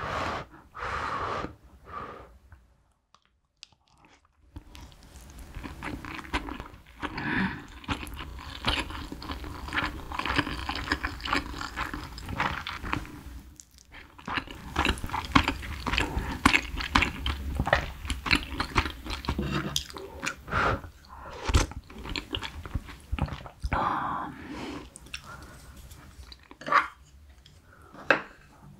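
Close-up chewing of mouthfuls of rice and spicy braised cutlassfish, with a few sharp clicks from the wooden spoon and chopsticks.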